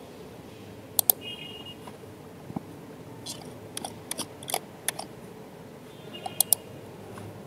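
Faint computer mouse clicks over a low hiss: a quick pair about a second in, a scattered run of single clicks through the middle, and another pair near the end.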